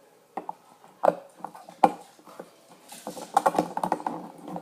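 Handling of a fidget cube and its plastic box: three sharp separate clicks in the first two seconds, then a quick run of small clicks and clatter near the end.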